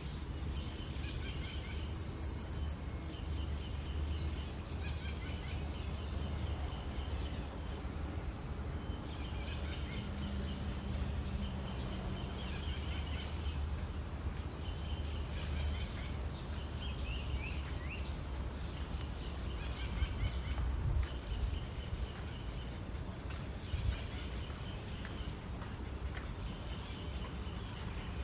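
Cicadas droning in a steady, high-pitched, unbroken chorus. Birds call now and then beneath it in short runs of repeated notes, over a low rumble.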